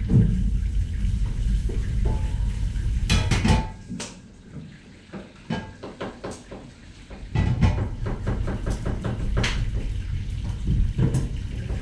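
Kitchen clatter: dishes, pans and utensils knocking and clinking at irregular moments over a steady low rumble, which drops away for a few seconds in the middle.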